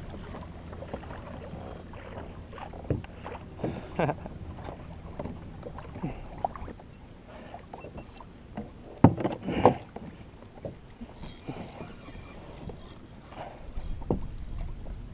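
Water lapping and slapping against a fishing kayak's hull as a hooked shark tows it around, with wind on the microphone. A few sharp knocks stand out, the loudest two close together about nine seconds in.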